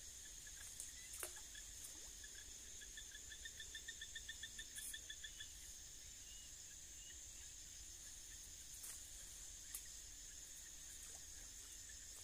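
Faint outdoor ambience: a steady high hiss, with an animal's rapid pulsed trill of about eight notes a second starting about two and a half seconds in and lasting about three seconds. A few faint ticks are scattered through it.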